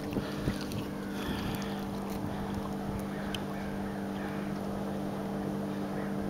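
Steady mechanical hum aboard a bass boat, holding a few low pitches without change, with a couple of light knocks near the start.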